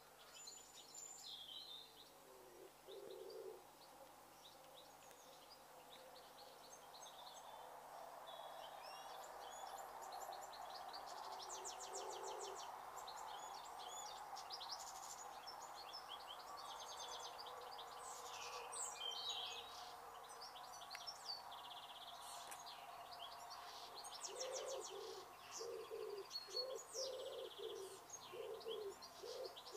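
Outdoor birdsong: small birds chirping and singing in short high trills, with a dove or pigeon giving low cooing notes, repeated steadily near the end. A faint hum swells and fades in the middle.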